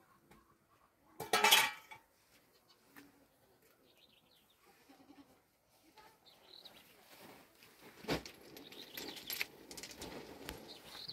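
A goat bleats once, loudly, about a second in. From about six seconds on come rustling and light clinks and clatter, with a sharp knock about eight seconds in, as a load is handled and set down.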